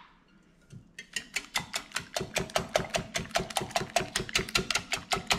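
Wire whisk beating eggs and milk in a glass bowl, the wires clicking against the glass in a quick, steady rhythm of about six strokes a second. The whisking starts about a second in.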